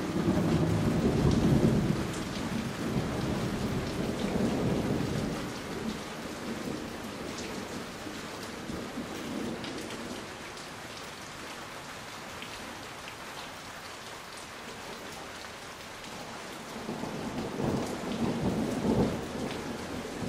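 Thunder rumbling over steady rain. A long rumble in the first few seconds fades out, and another rumble comes near the end.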